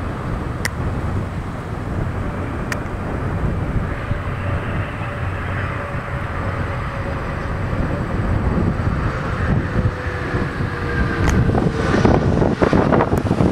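Bombardier CRJ regional jet's rear-mounted turbofan engines on landing: a steady jet rush with a faint falling whine, growing louder into a rough roar near the end as the jet rolls out on the runway.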